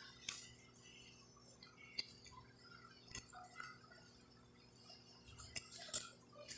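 Faint, scattered clicks and soft crackles of crispy fried fish being picked apart by hand and chewed, with a couple of louder clicks near the end.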